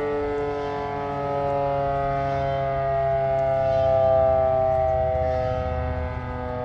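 Darley Model 5 mechanical outdoor warning siren sounding its daily noon test: a steady wail whose pitch sags slowly, growing louder about four seconds in.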